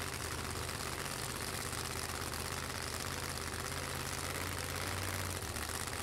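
Top Doorslammer drag car's engine idling steadily. It gets briefly a little louder about five seconds in, then settles.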